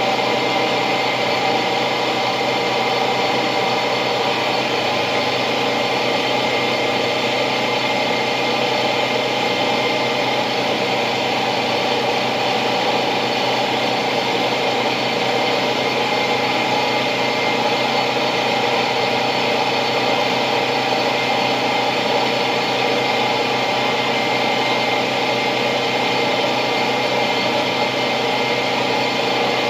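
Steady machine drone, like a small engine or motor running without change in speed or level.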